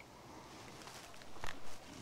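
Rain falling steadily on a river's surface, an even patter. About one and a half seconds in, a brief louder rustle close to the microphone.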